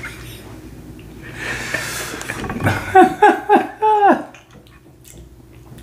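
High-pitched laughter: a breathy, wheezing stretch, then four short squealing laughs, each falling in pitch, the last one longest.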